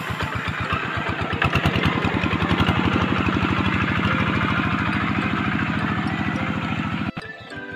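Single-cylinder diesel engine of a two-wheel hand tractor running steadily with an even, rapid pulse, pulling a plough through a flooded rice paddy. It cuts off abruptly near the end and music starts.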